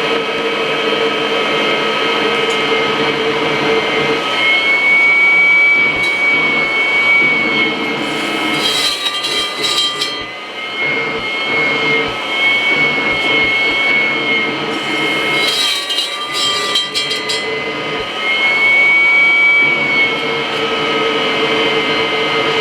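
Kirby vacuum cleaner running with its hose attached. About four seconds in, its steady hum changes to a whistle that wavers in pitch, with two short bursts of rattling. The hum returns near the end.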